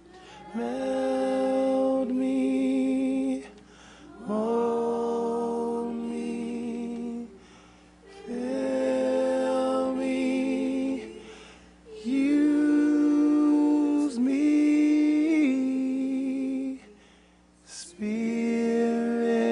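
A woman singing slow, long-held phrases with vibrato, five of them with short pauses for breath between, in worship. A faint sustained keyboard note sits underneath in the first half.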